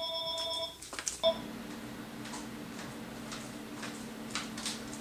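An electronic telephone ring that cuts off just under a second in, followed by a few clicks and a short beep from the handset. A steady low hum with faint ticks fills the rest.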